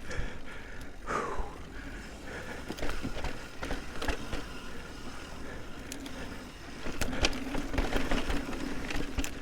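Mountain bike riding down a rooty, rutted dirt trail: steady tyre and wind rumble on the microphone, with many sharp knocks and rattles of the bike over the roots.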